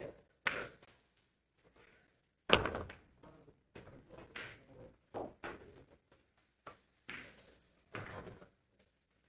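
Billiard balls knocking during 10-ball play on a pool table: a few sharp clacks, the loudest about two and a half seconds in.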